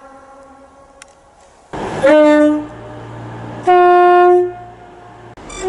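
Two-tone train horn: a short low note about two seconds in, then a longer, higher note about a second later.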